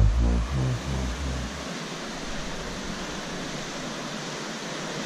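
An electronic dance track with a thumping bass beat ends about a second and a half in, leaving a steady rushing wash of ocean surf.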